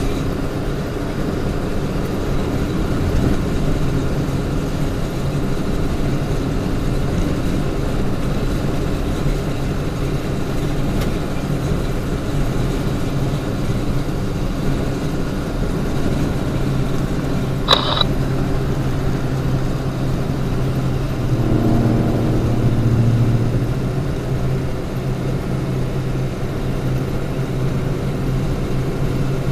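Steady road and engine noise of a car cruising at freeway speed, heard from inside the cabin. About two-thirds of the way through there is one sharp click, and soon after a low droning note swells for a couple of seconds and fades.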